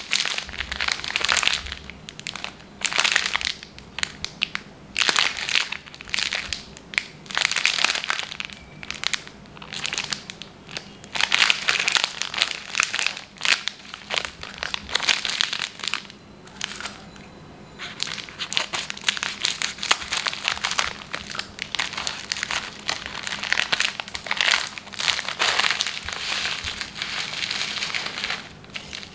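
Plastic biscuit wrapper crinkling in irregular bursts as hands squeeze and open it. The foil-lined inner pack rustles as the stack of biscuits is pulled out.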